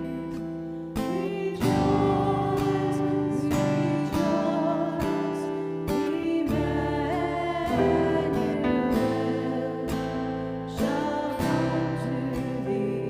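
Music: strummed acoustic guitar with singing over it, chords changing every second or two.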